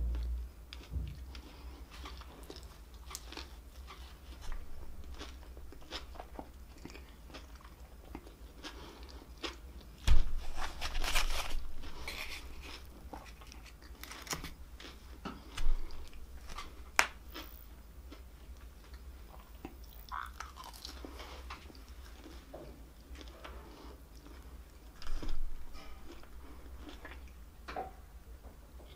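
Close-miked chewing and crunchy biting of breaded fried fast food, with many small wet mouth clicks. The loudest crunches come about ten seconds in and again around fifteen to seventeen seconds.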